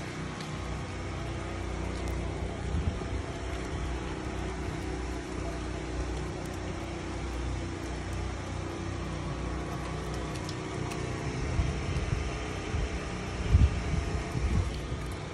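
Hurricane wind blowing steadily, with gusts buffeting the phone's microphone in low rumbling thumps, the strongest a little before the end.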